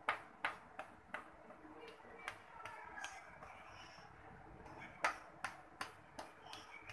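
A fork pricking sauced pizza dough on a metal pizza pan: light clicks of the tines, in short runs of about three a second.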